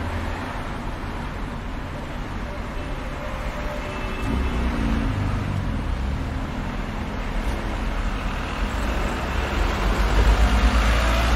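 Street traffic at a city intersection: cars driving past with a steady engine and tyre rumble, swelling louder about ten seconds in as a car passes close by.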